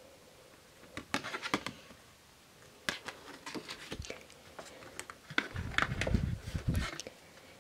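Printed paper cards and booklets being handled and flipped through by hand: crisp rustles and taps of paper, with a heavier, lower handling rumble lasting over a second about six seconds in.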